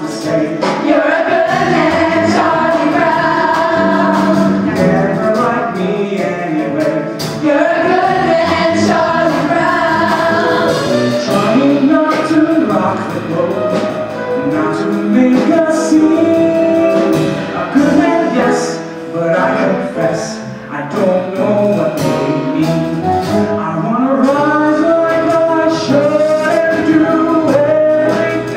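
A stage-musical number: cast singing together, accompanied by a live pit orchestra.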